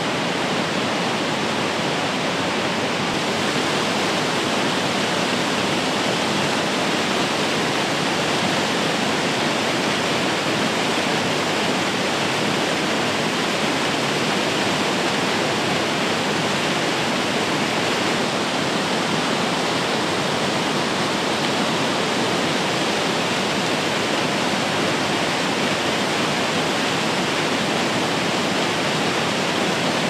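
Low, wide waterfall pouring over a rock ledge into a churning pool: a steady, even rush of falling water.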